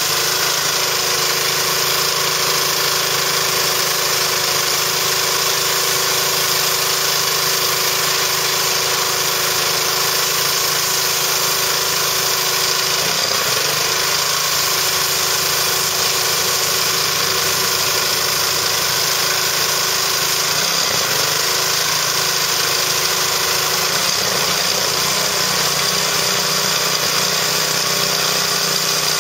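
Pressure washer running steadily, its motor and pump humming under the constant hiss of the water jet spraying onto a tarp.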